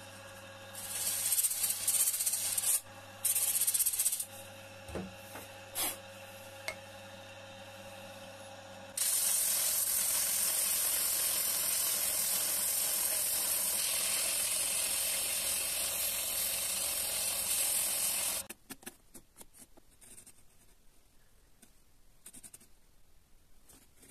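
Motor-driven sanding disc spinning with a steady hum, with a piece of wood pressed against it in two short strokes in the first few seconds, then held against it in one continuous sanding run of about nine seconds that stops abruptly. After that only faint handling rustles remain.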